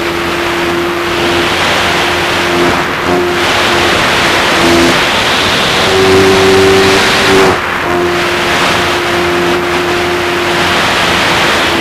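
Onboard sound of a radio-controlled P-51 model plane in flight: the motor and propeller hum steadily under loud wind rush. The pitch rises with the throttle about six seconds in and eases back a second and a half later.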